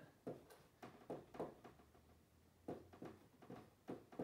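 Faint, short strokes of a dry-erase marker on a whiteboard as an equation is written, coming in quick runs with a brief pause in the middle.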